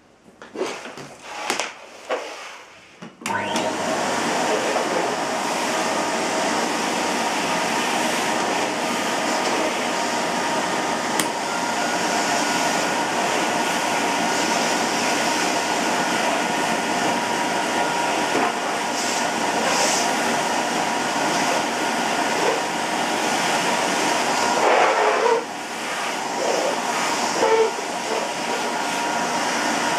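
A Hoover Sensotronic System 2 S3128 canister vacuum cleaner is switched on about three seconds in, after a few handling clicks. It then runs steadily, a rushing airflow with a motor whine, and dips briefly in level near the end.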